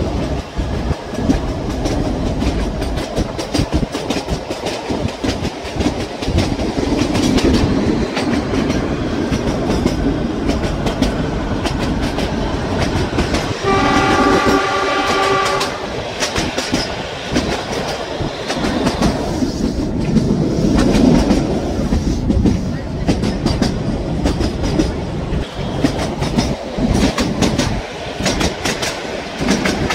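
Narrow-gauge passenger train running, its wheels clattering steadily over the rail joints, with wind rush, heard from an open coach window. About halfway through, the train's horn sounds once for about two seconds.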